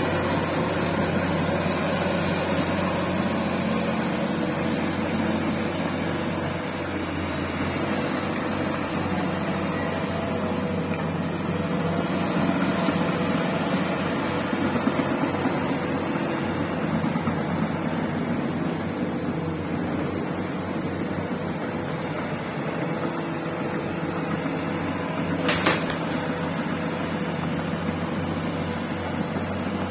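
Bulldozer's diesel engine running steadily, with one sharp click or knock near the end.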